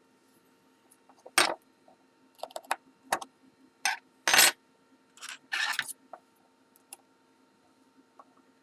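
Small metal tool clicking and scraping against the steel C-clip on the back of a Kwikset-clone lock cylinder as the clip is worked off. There is a run of sharp, irregular metallic clicks and two short scrapes a little past the middle.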